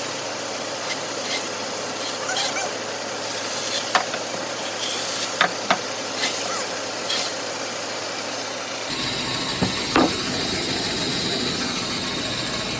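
Woodworking machine running with a steady hiss, broken by a few sharp knocks and taps of wood. The tone of the running noise changes abruptly about nine seconds in.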